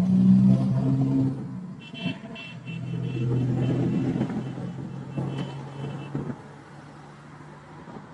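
Road traffic passing on a multi-lane road: cars and a pickup truck driving by, with a steady engine hum loudest in the first second and again in the middle, fading near the end. A high pulsing tone sounds faintly through the middle.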